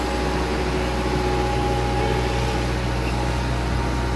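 Heavy engine running steadily: a constant low drone with a few faint steady tones above it.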